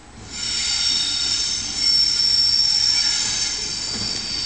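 Steel wheels of a Colas Rail Class 70-hauled train squealing as it comes through the pointwork. The shrill squeal sets in a moment in, made of several steady high-pitched tones held together.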